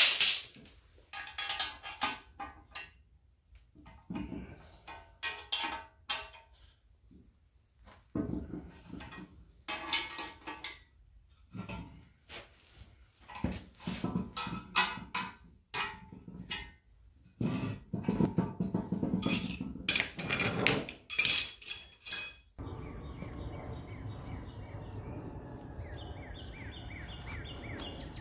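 Steel parts of a bolted buffer-stop frame clanking and ringing as they are handled, with knocks of a steel wrench on nuts and bolts, in irregular bursts. About 22 seconds in this gives way to steady outdoor background noise with bird calls.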